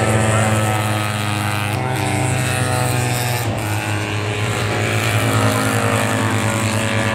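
Racing sidecar outfits' engines running hard as they pass on the circuit, several engines heard at once with their pitches overlapping and shifting.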